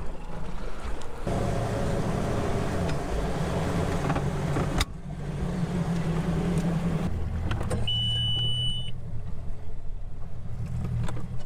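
A boat's outboard motor running steadily at trolling speed, with water and wind noise against the hull. A short high electronic beep sounds about eight seconds in.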